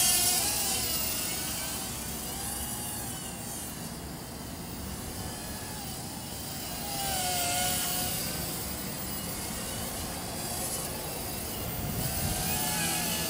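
Yi Zhan X4 quadcopter in flight, its motors and propellers whining with a pitch that keeps wavering up and down as the throttle changes, over a steady rush of wind noise.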